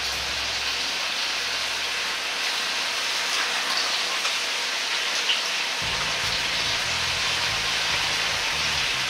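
Coated chicken pieces deep-frying in oil at about 170 °C in a wok: a steady sizzle of bubbling oil as more pieces are dropped in.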